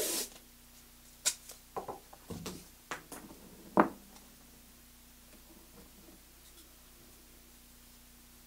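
Green painter's tape being pulled off the roll and torn: a short rip at the start, then a few brief crackles and clicks over the next four seconds, followed by quiet room tone with a faint steady hum.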